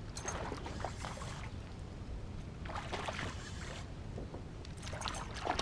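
Water splashing and trickling at the side of a kayak in three short bursts, at the start, about three seconds in and near the end, from a small hooked bass being reeled in to the boat. A low wind rumble on the microphone runs under it.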